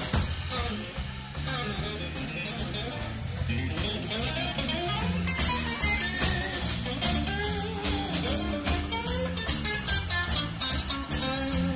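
A live band playing: an electric guitar picking a melodic line over an electric bass and a drum kit. The drum and cymbal hits keep an even beat and come up louder about five seconds in.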